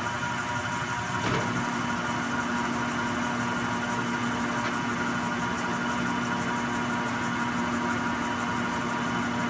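Blanchard 18-36 vertical spindle rotary surface grinder running, with the spindle turning and the magnetic chuck table rotating, a steady quiet mechanical hum. A click right at the start and another about a second in, after which a steady low hum joins, likely the table drive on a new speed setting.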